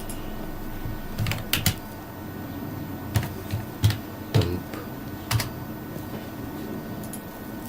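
Computer keyboard keys struck in a few short, irregular bursts of typing: a quick cluster of keystrokes a little over a second in, then single keystrokes spread over the next few seconds, against a faint steady room hum.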